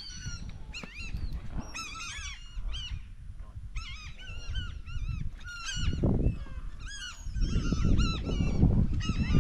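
A flock of birds calling over the river: many short, arched, harsh calls overlapping in quick clusters. A low rumbling noise swells about six seconds in and again near the end.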